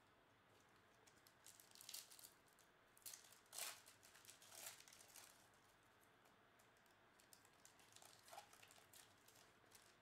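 Foil wrapper of a Panini Chronicles basketball card pack being torn open and crinkled: faint crackling in short bursts, loudest about three and a half seconds in, and again briefly around eight seconds.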